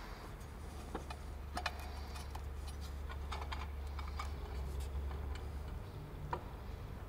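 Light, scattered clicks and taps as a valve cover is worked down onto an LS3 V8's cylinder head, over a low steady hum. The cover is catching on the ignition coil packs and won't sit down into place.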